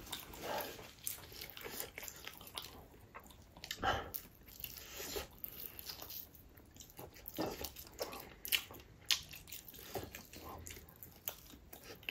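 A person chewing and biting food: irregular, short, soft mouth sounds, a few louder than the rest.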